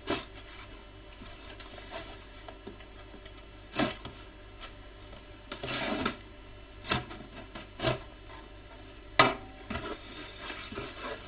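A cardboard shipping package being handled and opened by hand: scattered knocks, scrapes and rustles, with a longer rustle or tearing sound around the middle.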